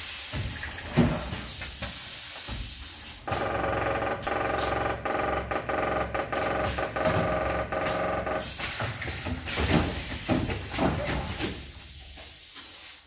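Pneumatic leak- and flow-test rig at work: compressed air hissing, with scattered clicks and knocks of pneumatic cylinders, clamps and valves. A steady humming tone with hiss comes in about three seconds in and stops about eight seconds in.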